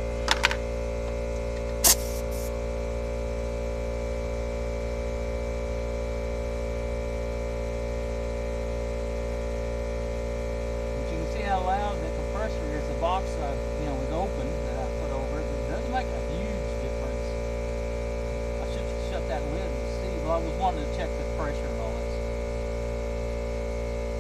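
Steady hum of a McGraw 8-gallon oil-free air compressor running while a tire is aired up through the hose, with two sharp clicks in the first couple of seconds and a few short chirps in the middle.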